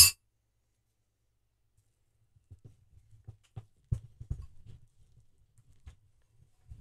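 A sharp clack right at the start, then soft, irregular low thuds and scrapes as a large metal spoon digs into a carton of frozen ice cream to scoop it out.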